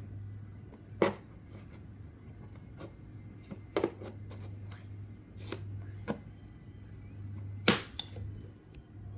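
Scattered sharp clicks and knocks of a screwdriver prying at a toy car's wheel to work the tire off, the loudest just before the end, over a steady low hum.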